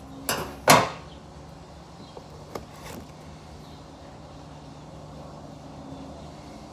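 Duct tape ripped off the roll in two short tearing rasps, the second louder, followed by a few faint taps a couple of seconds later.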